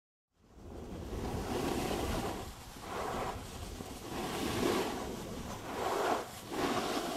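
Snowboard edges scraping across snow through a series of turns, each turn a swelling rush, with wind rumbling on the microphone.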